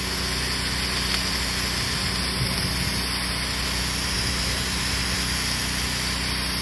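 Pressure washer running steadily: a constant engine note under the hiss of the water jet rinsing a window and vinyl siding.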